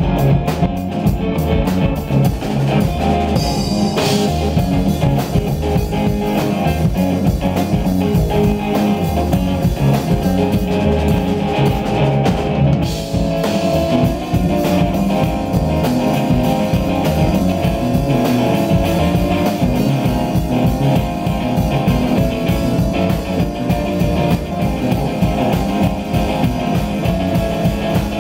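A live rock band playing: electric guitar, bass guitar and drum kit together at a steady groove.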